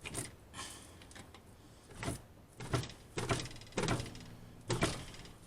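Sheet-metal brake being worked to bend a steel panel: a string of about six metal clunks and creaks, louder and closer together in the second half.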